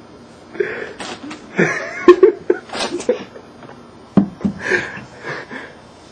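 Laughter in a rapid string of short bursts, with a few sharp breathy catches, lasting about five seconds.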